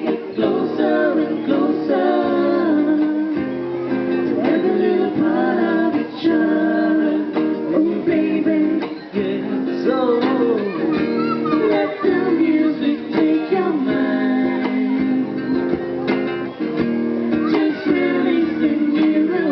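Acoustic band music: a strummed acoustic guitar accompanying a singer's melody.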